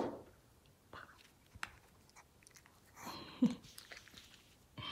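A sharp tap at the start as a small dish is set down. A Maltese dog then eats from it with soft, faint chewing and crunching.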